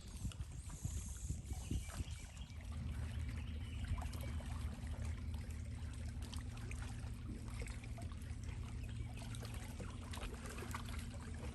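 Electric trolling motor switching on about two seconds in and running with a steady low hum. Before it starts there are a few irregular low knocks and bumps.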